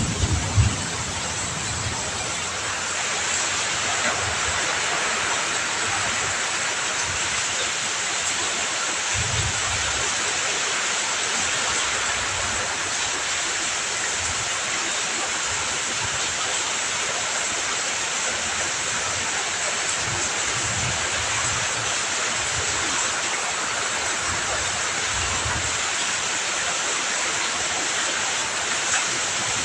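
Heavy rain pouring down in a steady, even hiss. A thunder rumble dies away in the first second, and faint low rumbles come and go later.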